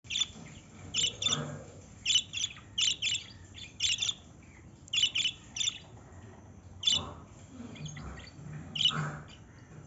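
Small pet parrots chirping: short, high, sharp calls, often two or three in quick succession, repeated every second or so with brief pauses.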